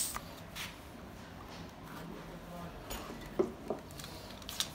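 A few light clicks and taps of metal fittings being handled on the engine, over a faint steady hum. The sharpest clicks come about three and a half seconds in and near the end.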